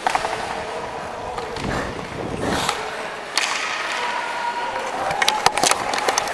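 Hockey skates gliding and scraping over rink ice, with a sharp knock about three seconds in. Near the end comes a quick run of clicks as a hockey stick taps the ice and the puck.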